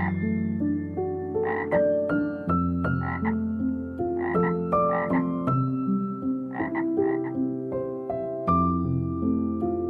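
A frog croaking in short runs of two or three calls, about nine croaks in all, over soft background piano music.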